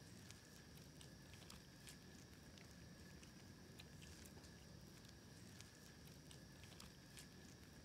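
Faint, irregular clicks of a black feral kitten chewing and biting its food.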